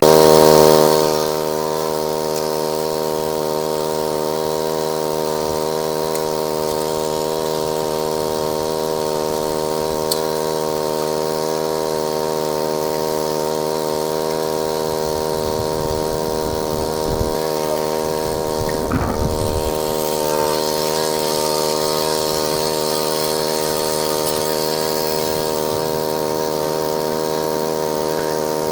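Small engine-driven water pump running at a steady speed, a little louder for the first second before settling into an even drone.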